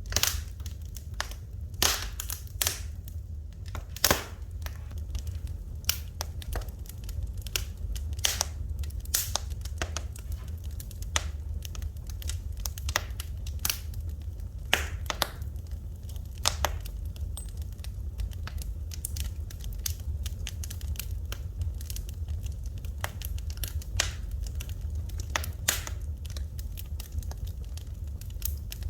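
Wood fire burning in a fireplace, crackling and popping in irregular sharp snaps of varying loudness over a steady low rumble.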